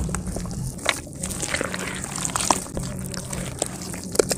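Hands squeezing and crumbling wet mud and dirt clods in a plastic bucket of muddy water, sped up to double speed: wet sloshing and squelching with many small crackles of crumbling earth.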